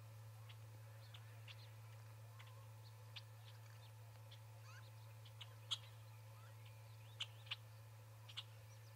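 Small birds giving short, high chip calls, scattered singly and in pairs a few seconds apart, over a steady low hum.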